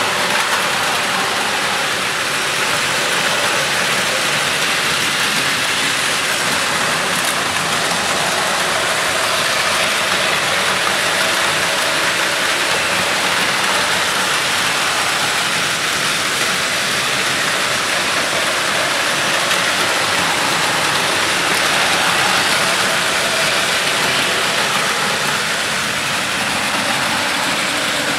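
Many battery-powered Plarail toy trains running at once on blue plastic track and spiral towers: a steady, dense clatter of small electric motors and plastic wheels on the track.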